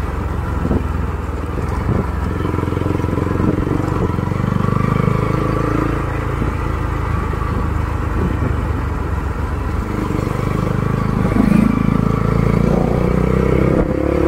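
Bajaj Pulsar NS200's single-cylinder engine running through a custom exhaust with a deep, bassy note, the pitch rising and falling with the throttle.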